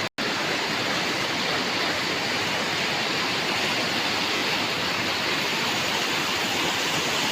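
Small waterfall: water rushing steadily over and between rocks.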